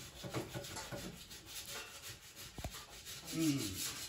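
Hand sanding or rubbing by hand on a small metal model part, in quick repeated strokes, with one sharp click partway through. Near the end there is a short low hum, the loudest sound in the stretch.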